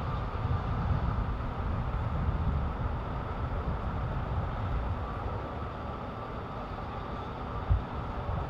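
Outdoor street ambience: a steady low rumble with a faint steady hum, and one short low thump near the end.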